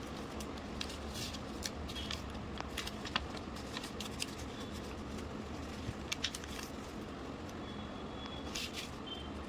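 Sheet of paper being folded and creased by hand: scattered short rustles and crinkles, a small cluster about six seconds in, over a steady low hum.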